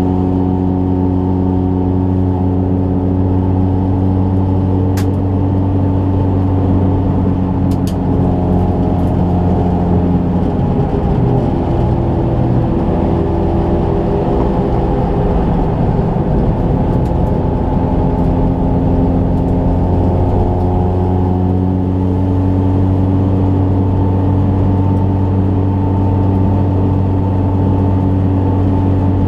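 Rally car engine heard from inside the roll-caged cabin of a Ford Fiesta, cruising steadily on a paved road with a constant droning hum. The pitch wavers and shifts midway as road speed changes. A few short clicks come about five and eight seconds in.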